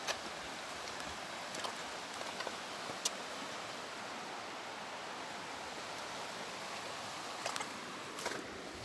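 Steady rushing hiss of water, with a few faint clicks.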